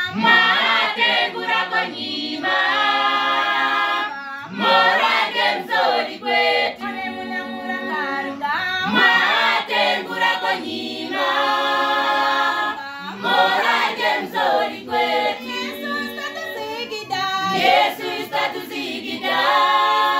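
Youth choir singing a cappella in harmony: held chords sung in phrases of a few seconds each, with short breaks for breath between phrases.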